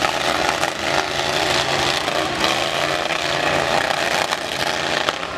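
Several demolition-derby truck engines running loud and revving unevenly together, with a few sharp knocks of metal on metal among them.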